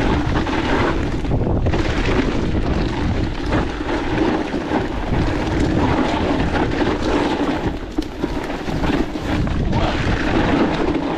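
Wind rushing over the microphone of a rider-mounted action camera as an electric mountain bike is ridden along a dirt trail, with tyre noise and the bike rattling over rough ground.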